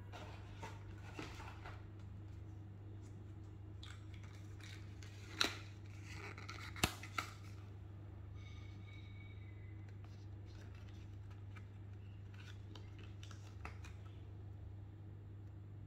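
Hands handling a phone and its box packaging: scattered rustles, scrapes and small clicks, with three sharp clicks about five to seven seconds in, over a steady low hum.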